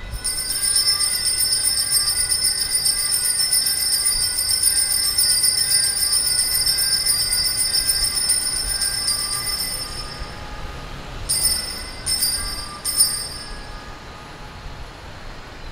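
Altar bells (sanctus bells) shaken in a continuous jingling ring while the chalice is raised at the consecration, stopping about ten seconds in, then rung in three short rings about a second apart as the priest genuflects.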